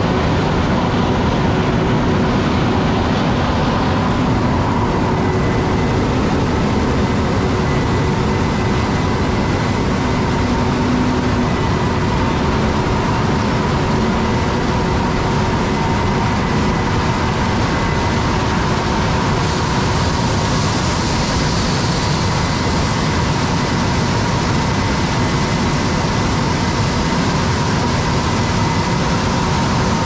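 Case IH 8250 combine harvester and a Case IH Magnum tractor pulling a grain cart running at work in a corn field: a steady, loud machinery drone of engines and threshing, with a faint steady whine.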